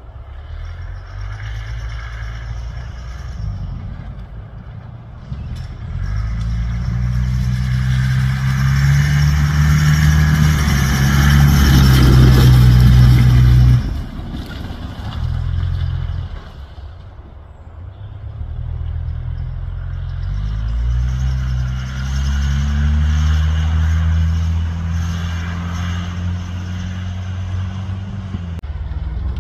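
Comp safari off-road vehicle's engine revving hard, climbing in pitch and held at high revs, then cutting off abruptly about halfway through. After a short blip and a brief lull it builds again and stays high.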